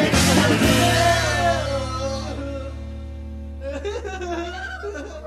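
Rock song with singing ending on a final chord that rings on and slowly fades away. Faint voices come in near the end.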